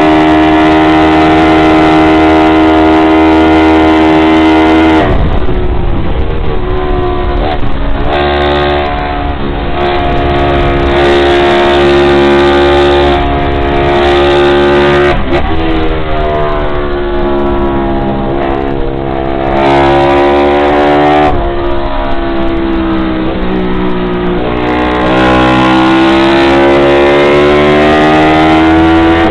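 Honda CB350-based engine of a vintage Drixton 350 road-racing motorcycle, heard on board at racing speed and high revs. Its pitch drops sharply at several gear changes and climbs again as it accelerates, rising steadily through the last few seconds.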